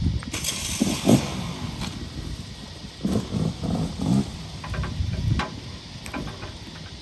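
Four-wheel-drive engine running off-road, with a burst of rushing noise about a second in and a few short knocks near the end.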